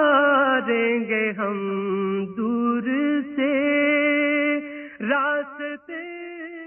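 A man singing an Urdu naat solo in long, wavering held notes. He breaks off about five seconds in and goes on more softly.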